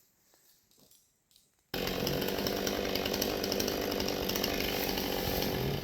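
Chainsaw running steadily, starting abruptly about a second and a half in after near quiet.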